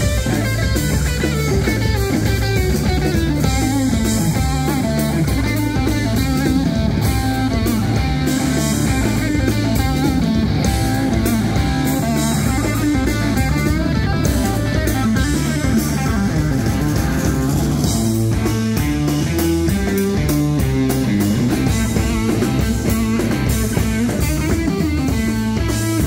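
Live rock band playing loudly without vocals: electric guitar through Marshall amplifiers over a drum kit.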